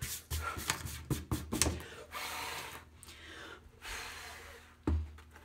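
Hands working on a craft piece: a few light knocks and clicks, then soft rubbing and breaths.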